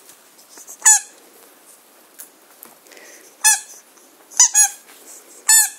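Squeaky dog toy being squeezed by puppies: five short, high-pitched squeaks, one about a second in, then three in quick succession and a last one near the end.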